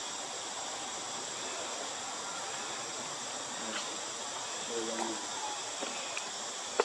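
Steady drone of insects, with a faint voice about five seconds in and one sharp click just before the end.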